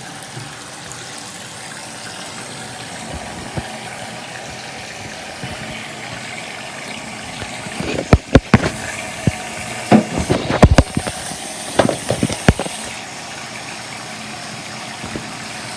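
Sink faucet running steadily through a newly fitted mini bidet adapter on its aerator. About halfway through comes a cluster of sharp clicks and knocks, the loudest sounds here.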